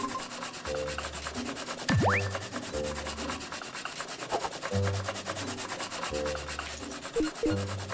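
Raw potato being grated by hand on a flat grater over a glass bowl: fast, even scraping strokes, one after another.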